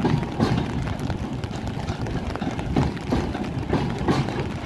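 Loaded freight flatcars rolling slowly past, their steel wheels clacking over the rails in a steady rhythm of about two knocks a second over a low rumble.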